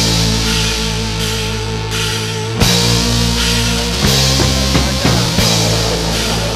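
Loud, distorted rock music with a full drum kit and heavy bass, guitar chords held and changing every second or two.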